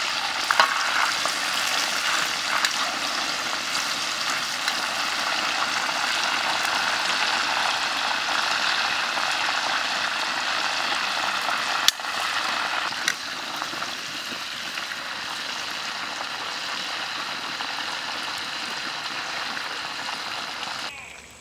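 Whole duck deep-frying in hot oil in a steel wok, the oil sizzling steadily, with a few sharp clicks. The sizzle drops away near the end.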